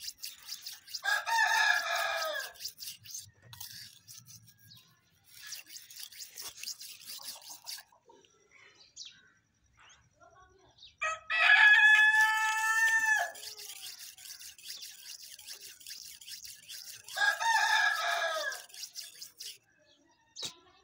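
A steel knife blade is stroked rapidly back and forth on a wet red sharpening stone, making a scraping rasp that comes in stretches. A rooster crows three times over it, about a second in, about halfway through and near the end. The middle crow is the loudest sound.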